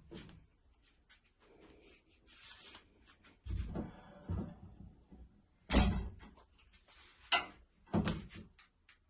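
A handful of knocks and thuds with some scraping in between, the loudest about six seconds in and two more close together near the end: hard objects being handled and set against a wall-mounted ironing board and its mounting hardware during installation.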